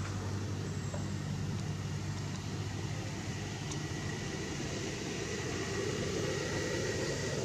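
Steady background noise with a low, engine-like hum that dips and swells, and a faint thin high whine in the second half.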